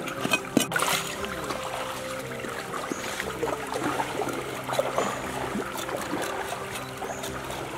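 Shallow stream water trickling, with a few sharp knocks of a knife on a wooden chopping board in the first second.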